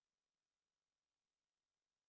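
Near silence: an essentially silent audio track with only a very faint, even hiss.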